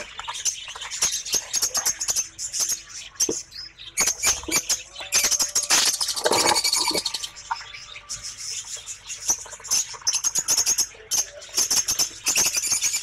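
Budgerigar chicks in a wooden nest box chirping in fast runs of high, rapid cheeps, loudest in a burst about five to seven seconds in.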